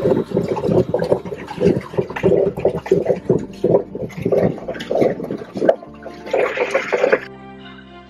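Paddle wheel of a pedal boat churning and splashing the lake water, about three splashes a second. Near the end it stops suddenly and soft background music takes over.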